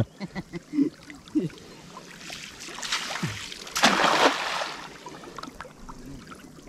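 Water splashing, building from about two seconds in to its loudest near the four-second mark, then fading away.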